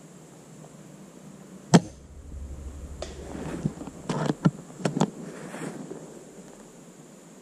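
A single shot from a Classic Army SR-40 spring-powered bolt-action airsoft sniper rifle, a sharp crack about two seconds in. From about three seconds to nearly six seconds come a run of clicks and rattles as the bolt is worked to cock the spring for the next shot.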